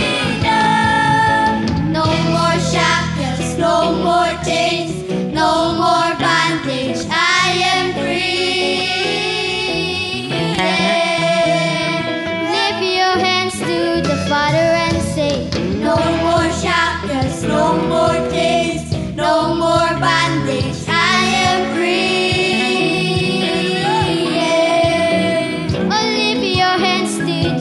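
Children's choir singing a gospel song into microphones, with instrumental backing.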